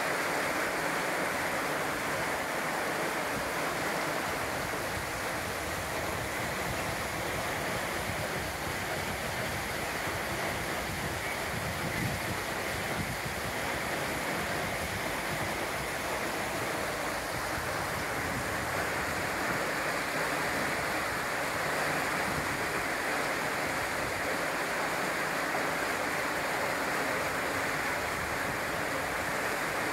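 River water rushing steadily over a low weir of stone blocks, spilling in a white cascade into the pool below.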